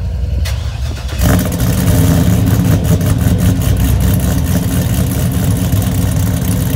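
Chevrolet TrailBlazer SS's 6.0-litre V8 running loud through its exhaust. The sound swells sharply just over a second in and holds there.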